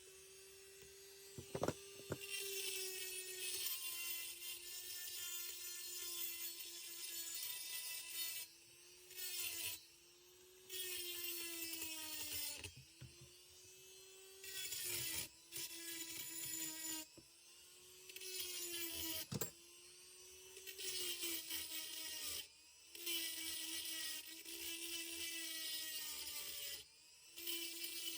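High-speed rotary grinder whining in runs of a few seconds with short pauses between, its pitch dipping a little as it bites: porting a chainsaw cylinder. Two sharp clicks, one near the start and one about two-thirds through.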